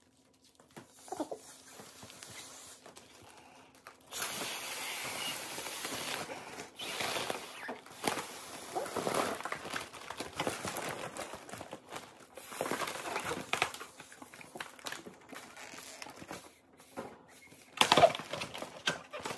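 Silver mylar foil balloons crinkling and rustling as they are handled and pulled, with irregular crackles, louder from about four seconds in and with a sharp loud crinkle near the end.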